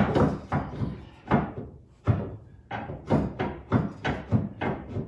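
Steel fifth-wheel hitch mounting bracket knocking and clanking against the truck's frame as it is worked up into place by hand. The knocks come in a quick, irregular string.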